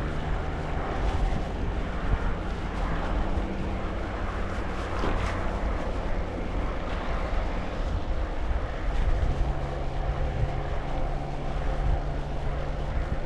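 A motor running steadily with a low, even hum. The hum fades through the middle and comes back near the end.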